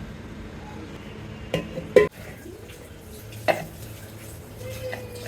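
A kitchen utensil clinking and knocking against cookware, three sharp strikes with the second the loudest, over a low steady hum.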